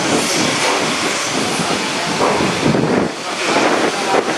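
Steam locomotive hissing as steam escapes, a dense steady hiss that dips briefly about three seconds in.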